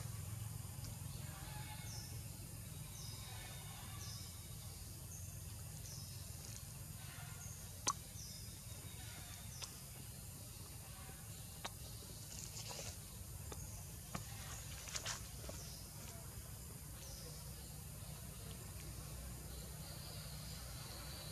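Faint forest ambience: a steady low rumble with short, high, falling chirps repeating about once a second, and a few sharp clicks scattered through it.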